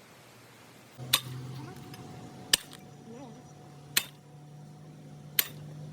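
Four sharp metal-on-metal strikes, evenly spaced about one and a half seconds apart, like hammer blows on steel, over a steady low hum that starts about a second in.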